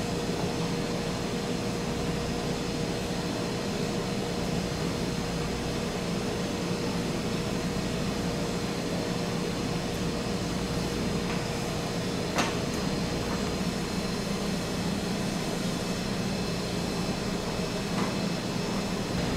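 Steady machine hum with a faint steady whine, broken by a sharp click about twelve seconds in and a lighter one near the end.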